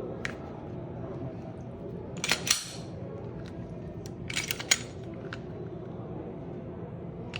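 Sharp metallic clicks and clacks of a Glock 19 Gen5 pistol being handled: two quick clusters of clicks about two seconds apart, with a few single clicks around them.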